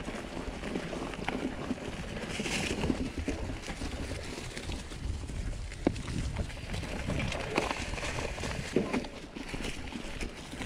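Mountain bike tyres rolling over dry leaf litter on a dirt trail, a continuous rustling crunch over low rumble, with a few sharp knocks from the bike over bumps.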